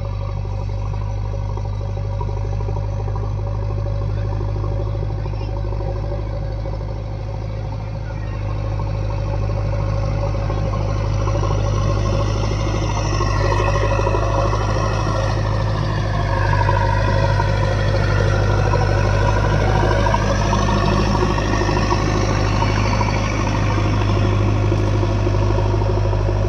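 JCB 3DX backhoe loader's diesel engine running steadily under work, growing louder about ten seconds in, with a higher whine that drops in pitch and then climbs back as the machine is loaded.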